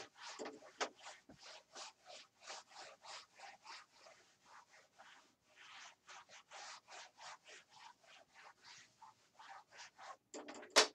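Whiteboard eraser wiping a dry-erase board in quick back-and-forth strokes, a rhythmic rubbing of about three strokes a second, ending with a sharp knock near the end.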